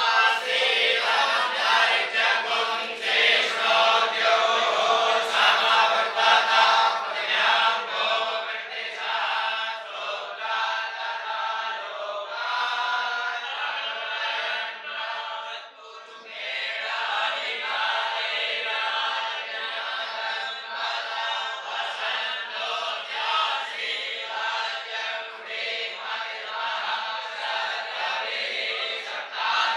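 A group of voices chanting mantras together in a steady recitation, with a brief pause a little past halfway before the chant picks up again.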